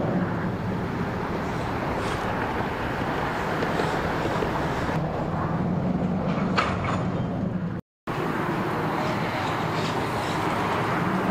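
Steady low rumble of road traffic, broken by a brief total dropout about three quarters of the way through.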